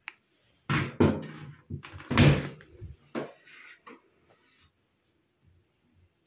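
A run of knocks and clatters over about three seconds, like a door or cupboard being handled; the two loudest come about a second apart.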